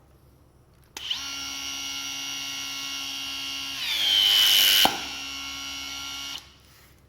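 Makita TC300D 18 V cordless hydraulic crimper's motor and pump running with a steady whine. About three seconds in, it grows louder and drops in pitch as it labours under load. A sharp click ends the loaded part, then it runs on at the earlier pitch for about a second and a half and stops.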